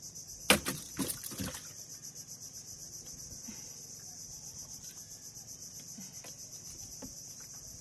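Steady, pulsing chorus of insects, with a quick cluster of four or so sharp knocks about half a second to a second and a half in, as the freshly caught grouper is handled in the boat.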